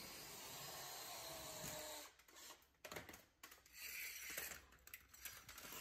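Cordless drill turning a scissor jack's screw to lower the vehicle, a steady whir that stops about two seconds in. Faint clicks and knocks follow as the drill and jack are handled.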